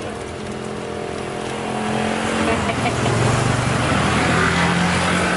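A motor vehicle's engine running close by, a steady low hum that grows louder over the first three seconds and then holds.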